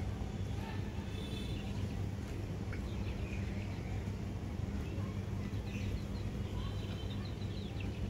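Small birds chirping in scattered short, high calls, a few at a time, over a steady low hum.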